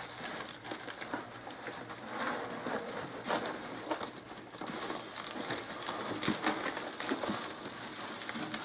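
Cardboard box and packing being handled: scattered rustles and light knocks.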